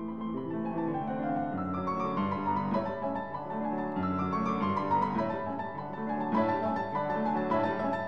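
Background piano music, a melody of changing notes over sustained chords.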